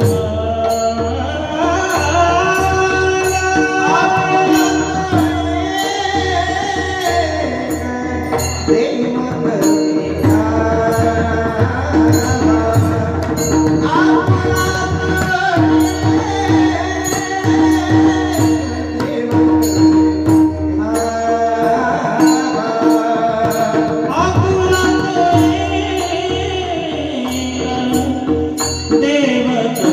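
Warkari kirtan chal: a devotional sung melody over held drone notes, with a pakhavaj drum and small cymbals ticking a steady beat.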